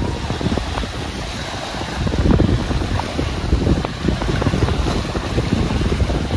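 Wind blowing across the microphone at the beach, a gusty low rush that swells a little about two seconds in.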